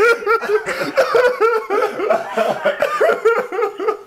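A man laughing hard in a long run of quick, repeated ha-ha pulses.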